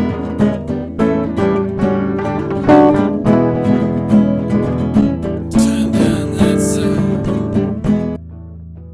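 Instrumental play-out of a song on guitar, plucked and strummed notes in a steady rhythm. The playing stops abruptly about eight seconds in, leaving a low note ringing quietly.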